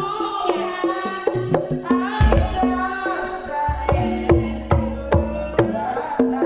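Live Banyumasan-style accompaniment for lengger dance: struck pitched percussion and a hand drum keep a steady, busy rhythm, with a deep bass coming in about two seconds in and a high wavering melody line over it.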